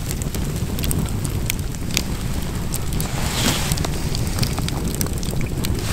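Open wood campfire of burning logs crackling, with many sharp irregular pops and a brief hiss about three and a half seconds in, over a steady low rumble.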